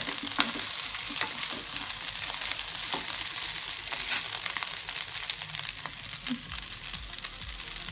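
Fried rice sizzling in a hot nonstick wok just after the burner is turned off, with a few scrapes and taps of a spatula in the first three seconds; the sizzle slowly dies down.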